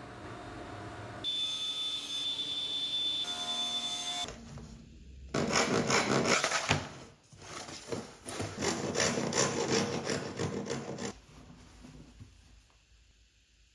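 Repeated rasping strokes of a hand tool worked over a walnut board, lasting several seconds. Before them there is a steady, even noise with a high whine.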